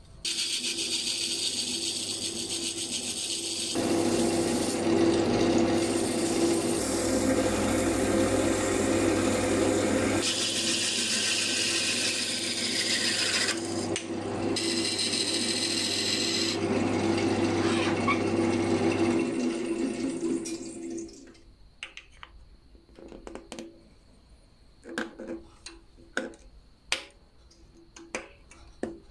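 Wood lathe running steadily while a chisel scrapes and cuts a spinning bamboo tube, loudest in the middle stretch. About 21 seconds in the lathe stops, and scattered knocks and clicks follow as the tool and workpiece are handled.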